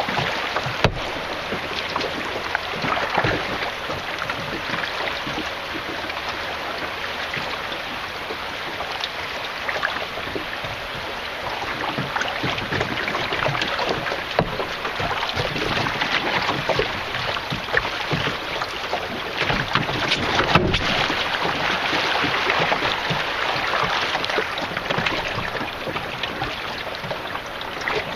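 River water rushing and splashing steadily around a canoe, a continuous fizzing wash that grows a little louder about halfway through.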